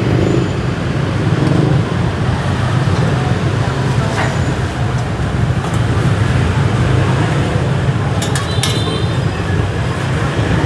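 Steady street traffic noise, with a few short sharp clinks about eight seconds in.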